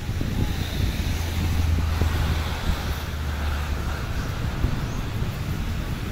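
Distant jet airliner on the runway: a low, steady rumble that eases off about four seconds in, with wind noise on the microphone.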